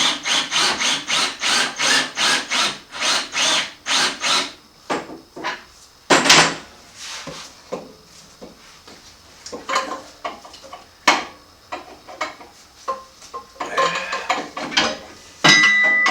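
Hand-tool work on a motorcycle's rear brake caliper while it is being removed. First comes a quick even run of rasping strokes, about four a second for some four seconds. Then a loud short burst about six seconds in, and scattered metal clicks and knocks.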